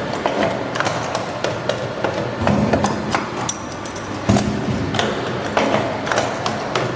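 Hydraulic strapping-buckle making machine running, forming steel buckles with repeated sharp metallic clacks and knocks at an uneven pace over a continuous mechanical noise.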